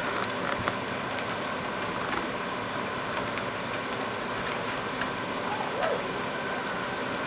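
Steady rain, an even hiss with scattered drops ticking close by.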